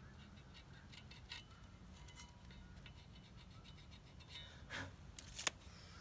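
Faint scratching and small ticks of a mark being drawn on a 3-inch square steel tube. A few sharper clicks and knocks follow near the end.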